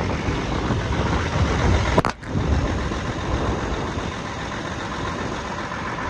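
Strong wind buffeting the phone's microphone, a rough rumbling noise that rises and falls in gusts. There is a sharp click with a brief dropout about two seconds in.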